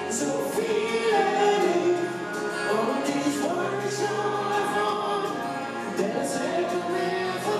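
Live band performance: a woman and a man singing together into microphones over an acoustic guitar and electric bass, through the venue's PA.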